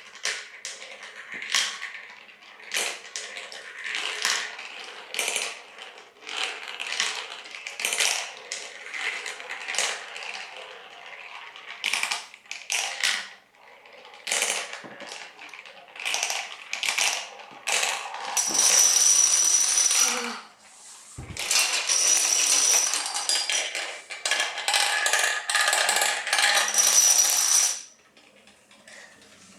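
Domino Tornado toy marble run at work: irregular bursts of fast plastic clicking and clattering. About two-thirds of the way through it becomes denser and louder, with a steady high whine under it, then drops away near the end.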